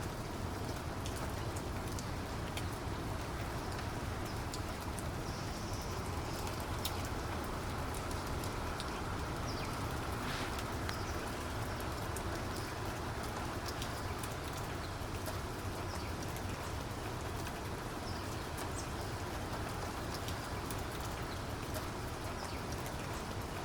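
Steady rain falling, a continuous hiss dotted with the taps of individual raindrops over a deep, even rumble.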